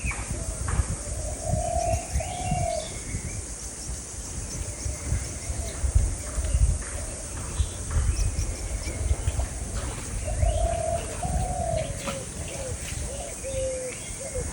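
A dove cooing in low, soft calls, one run about two seconds in and another from about ten seconds in, while small birds chirp briefly and a low rumble runs underneath.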